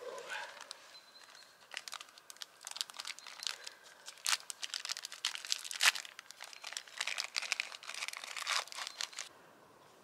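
Plastic crinkling and crackling as it is handled, in dense bursts that start about two seconds in and stop suddenly near the end.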